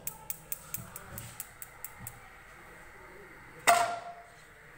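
Gas stove's spark igniter ticking rapidly, about five clicks a second for two seconds, as the burner is lit. Then a single loud metal clank with a brief ring, a karahi wok set down on the burner grate.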